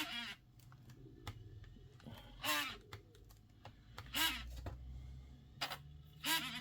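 A few light clicks and taps from handling the opened laptop, heard over a faint low hum of the running machine.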